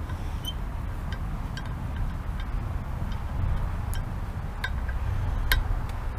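Scattered small clicks and light clinks of metal bench-rest parts being handled and fitted together during assembly, over a steady low rumble.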